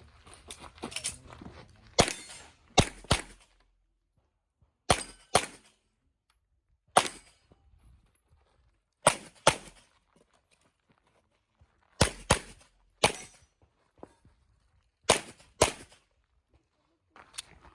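Handgun shots in quick pairs: about thirteen sharp reports, mostly double taps, with pauses of one to three seconds between the groups as the shooter engages targets.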